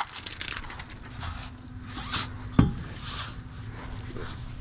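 A car wheel and tyre being handled onto its hub: short rasping scuffs of rubber and metal, with one sharp knock a little over halfway through.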